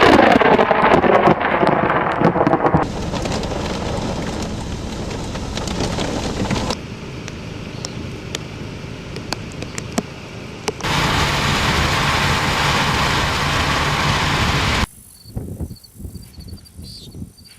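Thunderstorm sounds: a close thunder crack right at the start, rumbling away over about three seconds. Rain and distant thunder follow, changing abruptly several times. Near the end it drops to a quiet stretch with a faint, high, repeated chirping.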